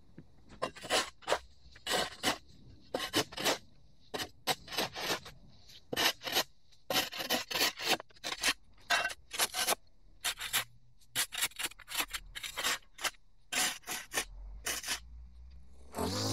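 Flat shovel blade scraping along a concrete curb edge, cutting away overgrown grass and soil: dozens of short, irregular scrapes, about two a second, sometimes in quick bunches.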